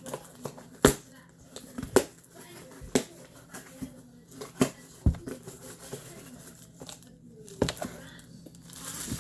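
Items and packaging being handled and opened: a series of sharp clicks and knocks a second or more apart, with light rustling of plastic and cardboard in between.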